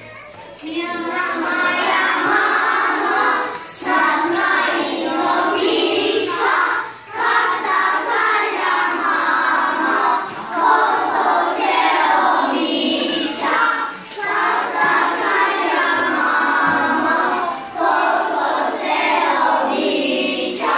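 A class of young children singing a Bulgarian lullaby together, in sung lines of about three seconds each with short breaks for breath between them.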